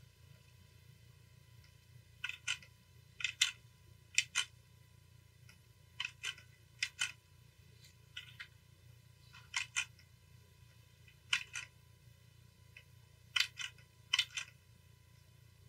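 Computer clicks at the desk, mostly in pairs like a button pressed and released, about ten pairs spread unevenly, over a faint steady low hum.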